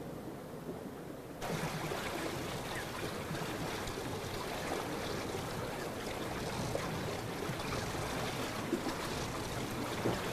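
Steady rushing noise of water, like waves or a stream, that cuts in suddenly about a second and a half in and holds steady.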